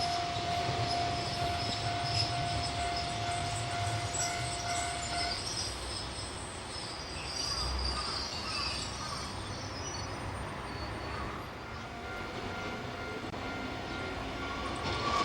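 Kotoden Shido Line electric train running, a steady rumble throughout, with a steady tone in the first five seconds that then stops.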